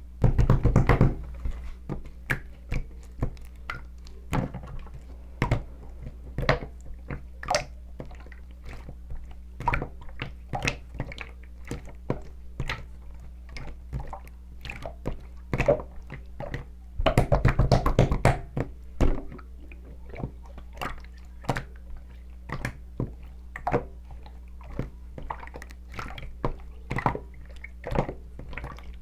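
Close-miked eating of soft sweet potato: many short wet clicks and squishes, with two louder, denser stretches near the start and about 17 seconds in, over a steady low electrical hum.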